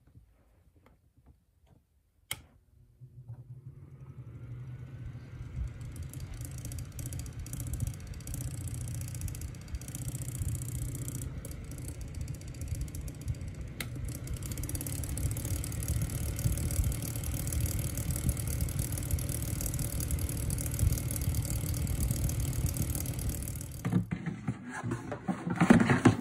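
Mainstays plastic clip fan switched on with a click, its small motor spinning up with a faint rising whine and then running with a steady hum and rush of air, a little louder after a second click about halfway. Near the end it stops, followed by a few loud clattering knocks as the fan is dropped into a trash can.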